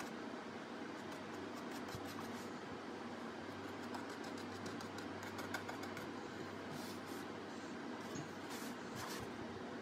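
Steady background hum, with faint light scratches and ticks of a thin paintbrush working paint onto a mask.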